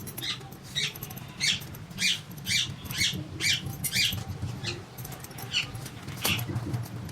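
A small animal calling: a series of short, high chirps, about two a second, with a brief pause about five seconds in, over a steady low hum.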